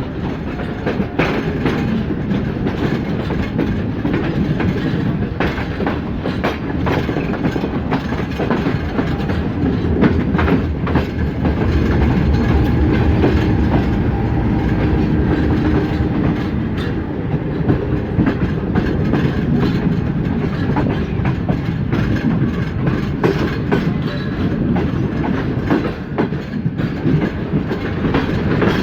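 Jinnah Express passenger train running on the track: a steady low rumble under a dense, irregular clatter of wheels clicking over rail joints, with a faint held tone about halfway through.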